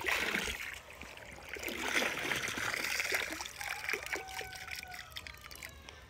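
Water splashing and sloshing as a scoop is pushed through a basin thick with azolla, then dribbling off the lifted scoop of dripping fern. There is a burst at the start and another about two seconds in, thinning to scattered drips.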